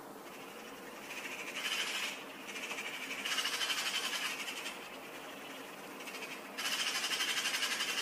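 Eurasian magpies chattering: rapid rattling runs of quick repeated notes, about ten a second, in three bursts, the last beginning near the end.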